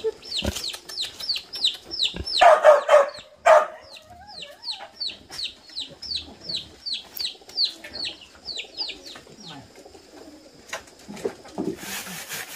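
Chickens: a run of high-pitched, downward-sliding peeps, about three a second, typical of chicks. Louder, lower calls break in about two and a half and three and a half seconds in.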